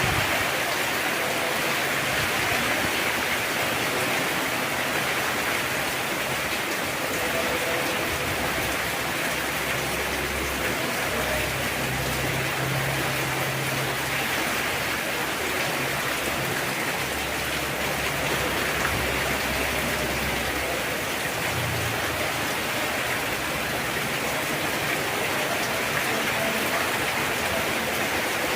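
Heavy rain falling steadily, an even, unbroken hiss of drops on surfaces. A faint low hum sits under it for a while in the middle.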